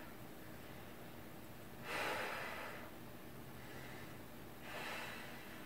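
A woman breathing hard, paced to Pilates leg lifts: a loud breath about two seconds in and a fainter one near the end.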